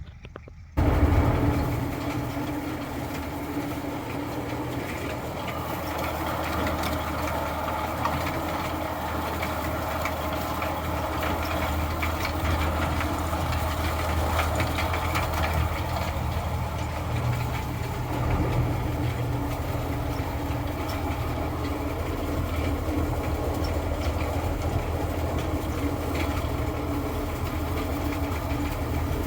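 Tractor engine running steadily under a constant low hum, cutting in abruptly about a second in.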